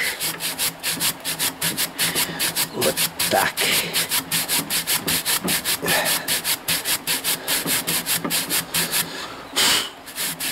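Rapid back-and-forth scrubbing on the end of a car heater core, about four or five rasping strokes a second, as dirt is cleaned out of its clogged tubes.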